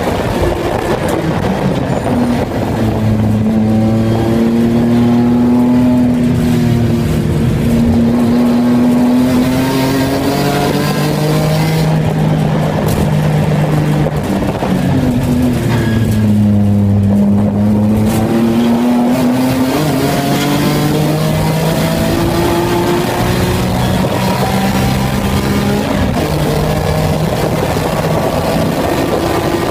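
Race car engine heard from inside its stripped, roll-caged cabin, pulling hard with its pitch climbing in steps through the gears. About two thirds of the way through, the pitch falls as the car slows, then climbs again as it accelerates away.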